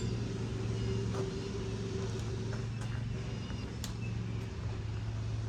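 A machine running with a steady low hum, with a few faint light clicks over it.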